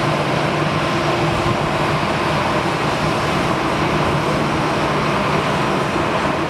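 Airbus A320-214's CFM56 jet engines running at taxi idle: a steady rumble with a constant whine.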